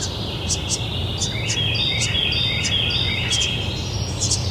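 Several songbirds singing and chirping: quick high chirps throughout, with a run of short whistled notes stepping up and down in pitch through the middle, over steady low background noise.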